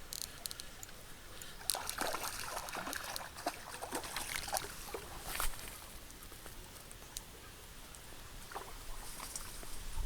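Water sloshing and trickling, with a busy stretch of small irregular splashes and clicks in the middle.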